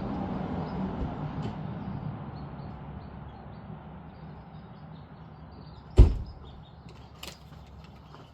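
A low hum fades over the first few seconds, then a door shuts with one heavy thump about six seconds in, followed by a few light clicks.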